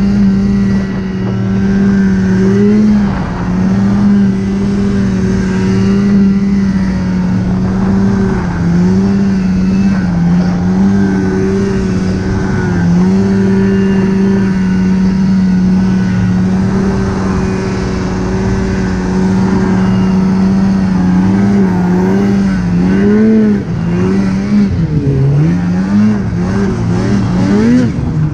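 Polaris snowmobile engine running at steady high revs, with brief dips as the throttle eases. In the last several seconds the revs swing up and down repeatedly with throttle changes.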